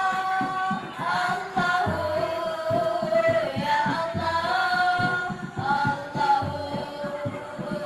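A group of children singing together in a high register over a backing track with a steady beat.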